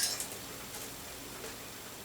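A sharp plastic click at the start, then a few faint ticks and light handling noise as a PC cable is worked by hand.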